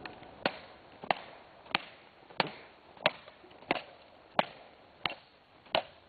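A hammer striking an object on the ground, nine sharp, evenly spaced blows at about one and a half a second.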